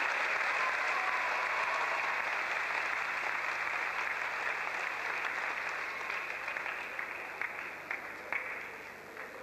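Audience applauding, slowly dying away, with a few last scattered claps near the end.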